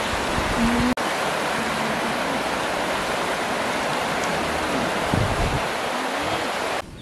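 A fast-flowing river rushing over rocks: a steady, even wash of water noise. It cuts out for an instant about a second in and drops away sharply just before the end.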